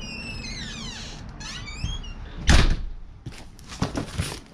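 A door squeaking open, with long gliding squeals from its hinges, then a loud thump about halfway through and a few lighter knocks and rustles as a cardboard box is handled.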